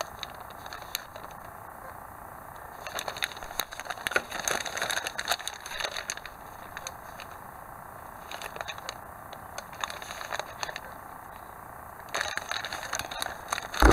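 Clear plastic bag crinkling and crackling around plastic model-kit sprues as they are handled, in bursts with quieter pauses between.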